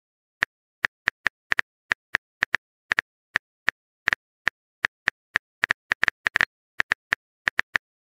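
Typing sound effect: a rapid, uneven run of keyboard clicks, about four a second.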